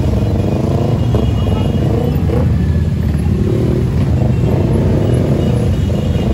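A large crowd of motorcycles running together at low speed: a dense, steady rumble of many engines, with some voices mixed in.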